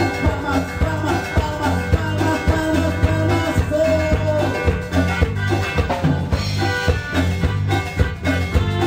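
A Latin dance band playing a cumbia medley: a steady, bouncy beat of drums and bass, with a melody line over it.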